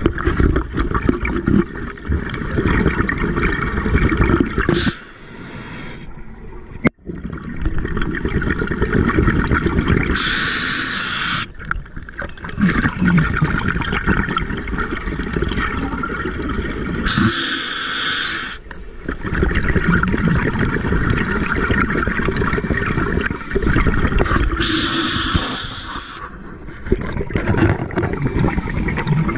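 Scuba diver breathing through a regulator underwater. A hiss comes on each inhale, about four times. Between them run long, rumbling streams of exhaust bubbles.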